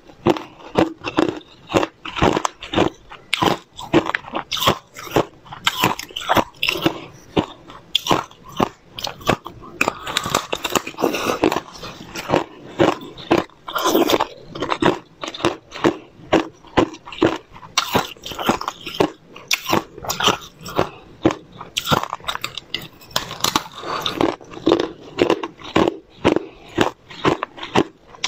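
Thin clear ice being bitten and chewed close to the microphone: a continuous run of sharp cracks and crunches, several a second, throughout.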